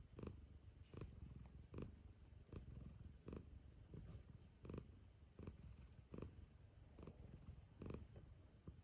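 Domestic calico cat purring, a faint low purr that swells in time with its breathing, about once every second and a half.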